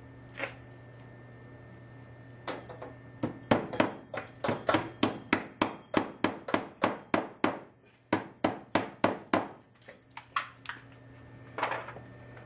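Hammer driving a copper pipe hook's nail into an overhead wooden floor joist to fasten copper pipe. It strikes quickly, about three times a second, with a short break partway through, then ends with a few lighter taps and one last blow.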